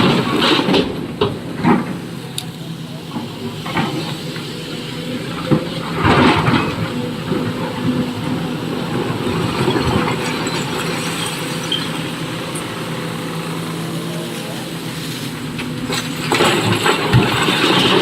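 A SANY SY225 excavator's diesel engine runs steadily, with loud noisy bursts just after the start, about six seconds in, and again near the end, typical of rock being loaded into a dump truck.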